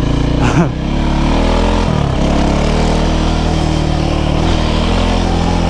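Loncin LX300 enduro motorcycle's single-cylinder engine running under throttle while being ridden. Its note climbs, drops sharply about two seconds in, then pulls on fairly steadily.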